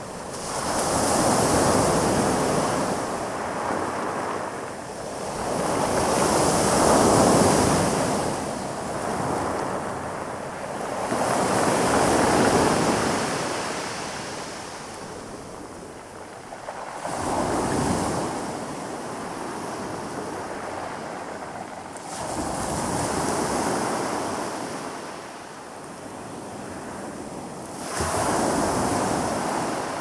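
Calm sea waves breaking and washing up on a pebble beach, about six waves, one every five seconds or so, each swell rising and falling away with a hiss.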